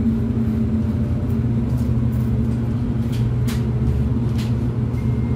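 Scania N280UB city bus's compressed-natural-gas engine, a five-cylinder 9.3-litre Scania gas engine, heard from on board, running with a steady low rumble as the bus drives along. A few brief clicks or rattles come through a little past the middle.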